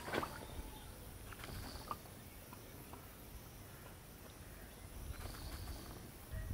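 Quiet outdoor background with a short knock at the start and a small click about two seconds in.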